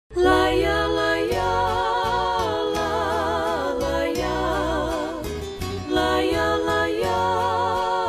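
Music: the opening of a Brazilian gospel song, a held lead melody with vibrato over a bass line and a steady beat.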